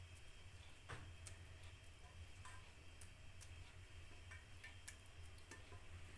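Near silence: a steady low hum with faint, irregular small clicks, about one a second, the loudest about a second in.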